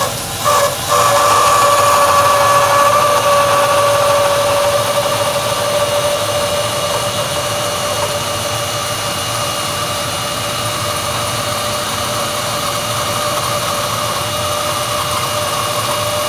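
Bandsaw with a 3/4-inch wide blade resawing a board into a thin veneer slice, running under load with a steady whine. The cut gets under way about a second in and holds an even pitch as the board is fed slowly and steadily.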